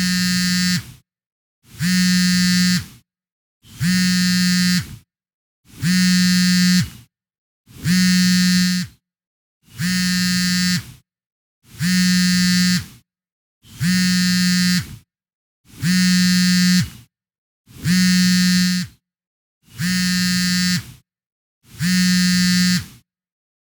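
Mobile phone on vibrate, buzzing in a steady pattern: about a second of buzz, a short gap, then the next, every two seconds. Each buzz is a low hum with a harsh, bright edge.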